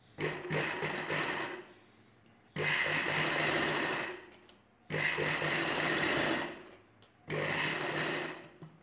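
Domestic sewing machine stitching lace trim onto fabric in four short runs of about a second and a half each, stopping briefly between them.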